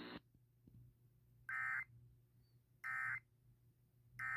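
Emergency Alert System end-of-message data bursts: three short, identical digital bursts about a second apart, signalling the end of the alert broadcast.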